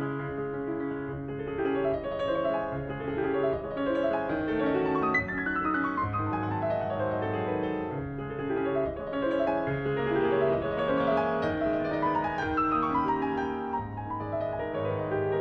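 Background piano music: a steady flow of notes with runs stepping downward in pitch, around five seconds in and again near twelve seconds.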